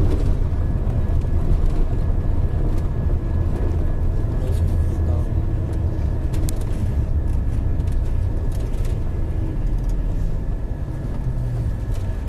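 A vehicle driving along a road, heard from inside the cabin: a steady low rumble of engine and tyres, with a few light clicks and rattles about five to seven seconds in.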